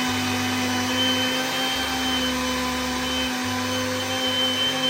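Electric blender running steadily at high speed with a constant motor whine, grinding sugar and flour into a fine powder.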